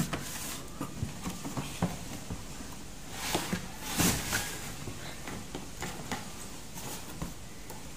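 A cardboard sleeve being slid off a hard plastic tool case, with handling knocks and scraping rustles, the loudest scrapes about three to four seconds in.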